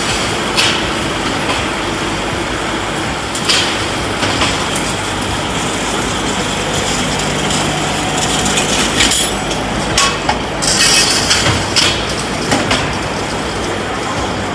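Welding-electrode production machinery running steadily with a low hum, with sharp clicks and metallic clatter now and then and a busier run of clatter about ten seconds in.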